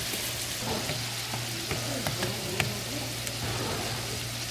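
Tteokgalbi patties sizzling in oil on a flat steel griddle: a steady frying hiss with scattered small pops and crackles, over a steady low hum.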